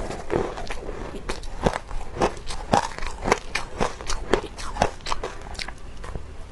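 A person biting and chewing powdery shaved ice close to the microphone: a quick, irregular run of crisp crunches, several a second.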